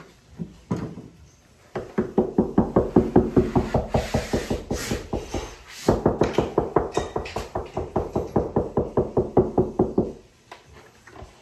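Cordless power driver running screws into cabinet wood, a fast even rattle of about nine knocks a second. Two runs, a brief pause about six seconds in, and it stops near the end.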